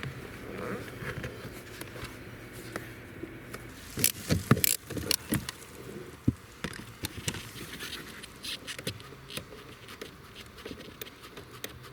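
Metal tools and parts clinking and clicking during car repair work, with a cluster of sharp knocks about four seconds in.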